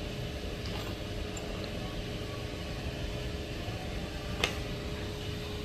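A steady machine hum with a constant faint tone, and one sharp click about four and a half seconds in.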